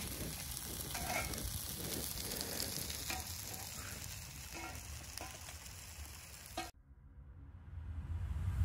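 Steady rush of flowing water, the water that drives a traditional water-powered flour mill (gharat). It cuts off abruptly near the end.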